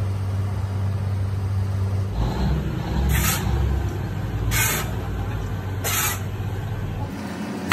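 Moulding sand thrown by shovel into a steel casting flask: three short hissing pours about a second and a half apart, over a steady low hum of machinery.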